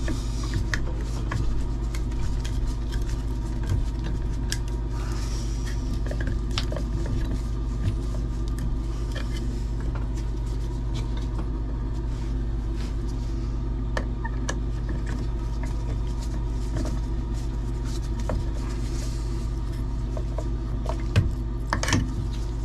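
A steady machine hum runs throughout, with scattered small metallic clicks and taps from hand tools working on copper pipe at a shower valve.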